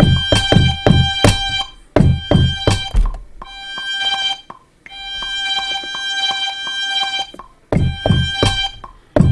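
A beat played on a Maschine Studio sampler: kick drum hits about four a second under a held, high, string-like sampled tone. The drums drop out around two seconds in, leaving the sampled tone alone through the middle, and return near the end.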